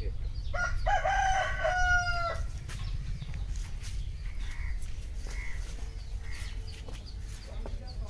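A rooster crowing once: a held call of about two seconds, wavering at first and then steady, starting about half a second in, over a steady low rumble.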